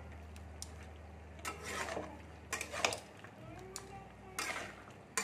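Flat metal spatula scraping and knocking against a metal kadai as cut vegetables are stirred and mixed with green chilli paste, in a run of separate scrapes.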